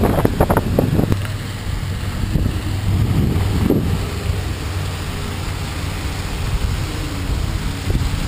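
Wind rumbling across the microphone of a camera riding along on a moving bicycle: a steady low noise.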